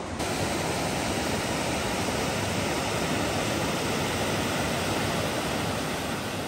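Steady rush of river water at a waterfall.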